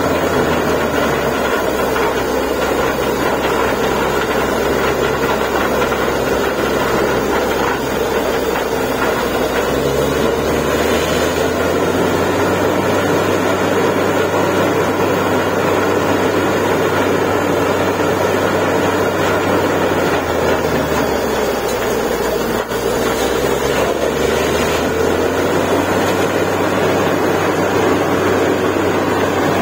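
Truck-mounted borewell drilling rig running steadily under load while it drills, a continuous heavy engine drone. There is one short dip in level about three quarters of the way through.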